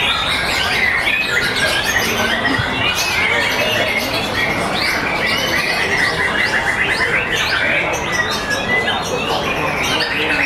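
White-rumped shamas (murai batu) singing over one another in a dense chorus of whistles and chatter. About six seconds in comes a fast run of quickly repeated notes.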